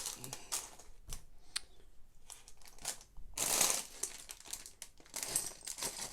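Thin plastic parts bag crinkling as it is handled and opened, with a louder rustle a little past halfway, and scattered light clicks of small plastic Lego pieces.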